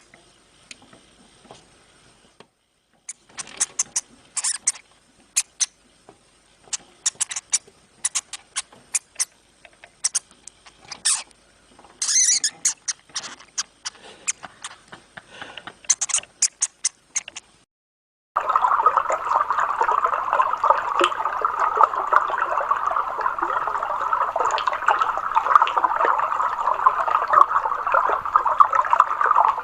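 Irregular sharp clicks and scratching for most of the first eighteen seconds. Then, after a sudden cut, steady rushing and bubbling water.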